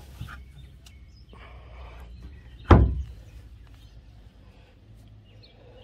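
A single sharp thud a little under three seconds in: the hatch lid of the live well on an all-welded aluminum bay boat knocking as it is handled, with a brief low ring after it.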